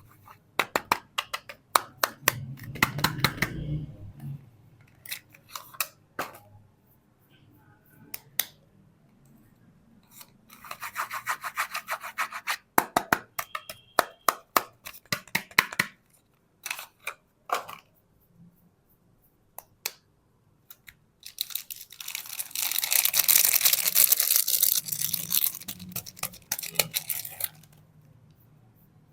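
Close-up handling and unwrapping of bar soap: wrapper packaging crinkling and tearing, with many sharp clicks and taps. There are three stretches of dense crinkling, the longest and loudest in the last third.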